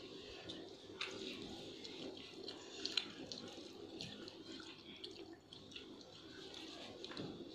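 Metal spoons scraping and clicking against steel plates as two people eat rice, with chewing; a few sharper clinks stand out, the loudest about three seconds in.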